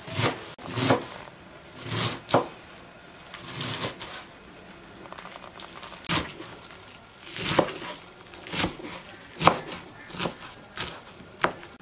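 Kitchen knife chopping fresh leafy greens on a wooden cutting board: about a dozen irregular knocks as the blade cuts through the leaves onto the board.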